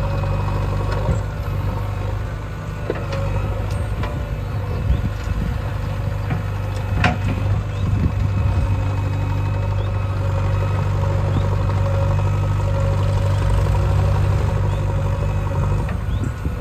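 Heavy diesel engine of the earthmoving machinery running steadily, with a sharp clack about seven seconds in.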